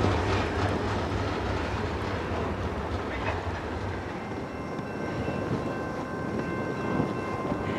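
Diesel freight train rolling past on the rails, its wheels clicking over the rail joints and its low engine rumble fading away. From about halfway in, a faint steady high ringing tone rises over the rolling noise.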